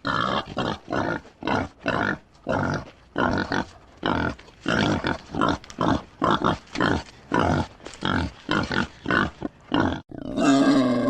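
Wild boar grunting in a rapid, rough series of short grunts, about two or three a second. About ten seconds in, the grunting gives way to a steady, held sound with a fixed pitch.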